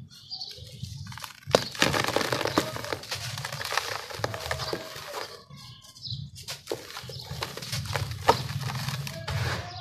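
Dry, dusty sand with small grit being crumbled and poured by hand in a tub: a steady gritty crackle with a couple of sharp crunches, about a second and a half in and again near the end, and a brief lull a little past halfway.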